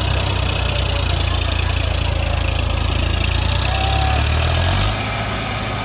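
Heavy diesel engine running steadily at a low, throbbing note, which drops a little about five seconds in.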